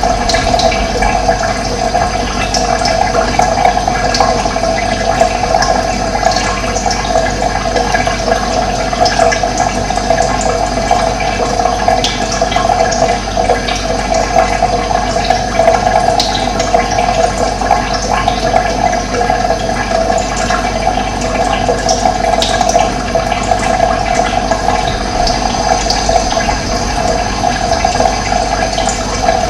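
Running water rushing steadily, with faint high bird chirps here and there.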